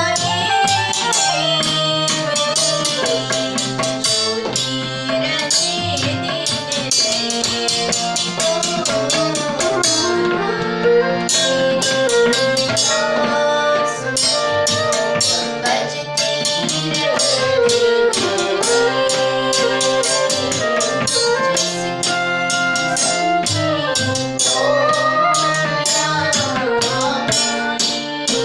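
Live Indian devotional music: a flute plays a gliding melody over a harmonium, and a hand drum keeps a steady beat.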